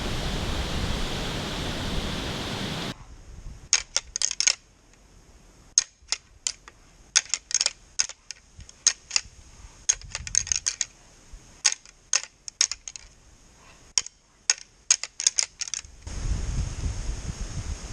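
Steady wind noise on the microphone for about three seconds, then it drops away and irregular clusters of light, crisp crunches, like steps through dry leaves, come and go for about thirteen seconds before the wind noise returns near the end.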